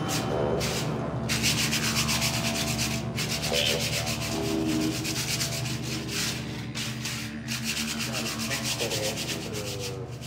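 Sandpaper rubbed by hand over black painted lettering on a rough concrete wall, scuffing the paint. The rapid back-and-forth scraping comes in runs with brief pauses between them.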